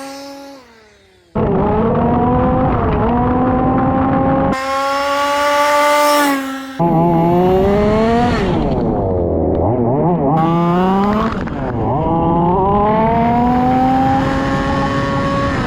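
A ringing tone fades out in the first second. Then a 1/5-scale petrol-powered RC Formula 1 car's small two-stroke engine runs at high revs, its pitch climbing and dropping as the car accelerates, slows and speeds up again, with abrupt cuts between shots.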